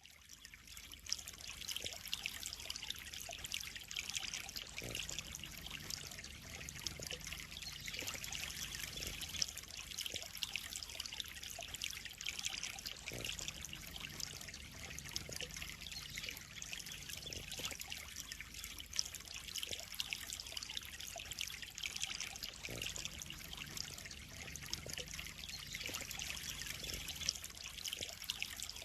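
Water trickling and splashing steadily into a koi pond, a continuous fine splashing hiss.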